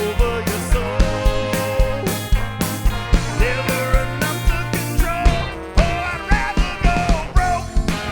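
Live soul band playing an instrumental passage: a drum kit keeping a steady beat under bass, with a lead melody line that slides between notes.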